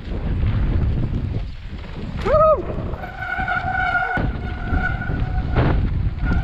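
Mountain bike running down a loose, dusty dirt trail: a steady rumble of tyres and wind on the helmet-mounted microphone. About two seconds in, a short squeal swoops up and down, then a steady high squealing tone holds for a couple of seconds and returns briefly near the end.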